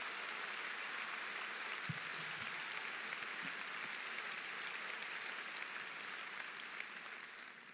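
Large crowd applauding steadily, dying away near the end.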